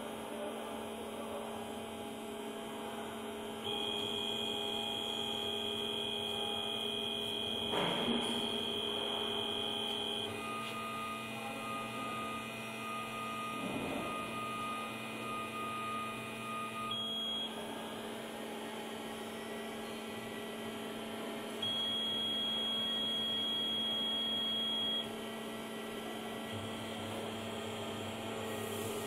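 Hot-wire foam cutting machine running: a steady electrical hum, with a high-pitched whine from its drive motors that switches on and off in steps. The whine starts about four seconds in, drops to a lower tone, and returns near the end.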